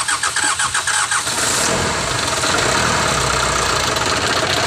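Mitsubishi 4D32 four-cylinder diesel engine running on its freshly calibrated, refitted injectors, with a rapid pulsing through the first second or so that settles into a steadier run.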